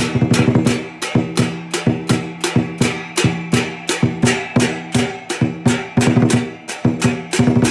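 Large Chinese lion-dance drum beaten with two sticks in a fast, steady rhythm of about four strokes a second, with quicker flurries, and cymbals clashing along with the beat.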